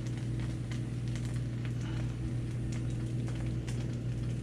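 A steady low electrical hum, with faint scattered ticks and crackles over it.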